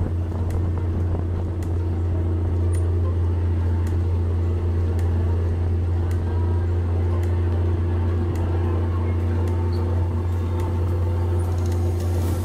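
Motor boat's engine running steadily at cruising speed, a constant low drone heard from inside the wooden cabin.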